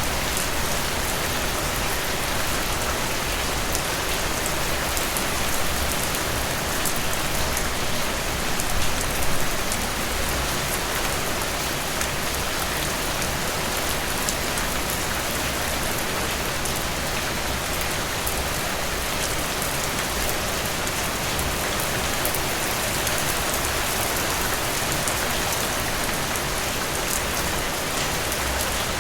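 Steady rain falling on a surface, with many close drops ticking and a few slightly louder spatters about eight to nine seconds in.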